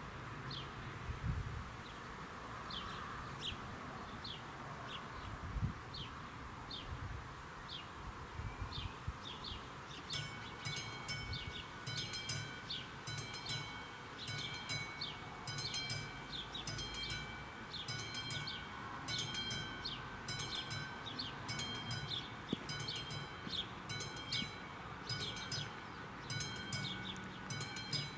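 Level crossing's electronic warning bell starting up about ten seconds in and then ringing evenly at about one strike a second: the AŽD 71 crossing signals warning of an approaching train. Before it, short high bird chirps repeat.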